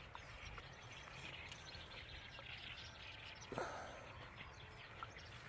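Faint early-morning outdoor ambience with small birds chirping, and one soft knock about three and a half seconds in.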